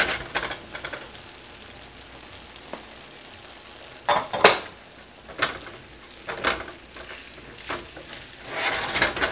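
Spaghetti and sausage in a skillet sizzling softly while tongs toss it. From about four seconds in there are five or so sharp scrapes and clacks against the pan.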